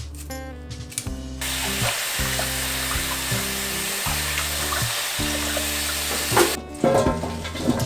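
A stream of tap water pouring onto cut young summer radish greens in a stainless steel bowl, starting about a second and a half in and stopping near the end, followed by a few splashes.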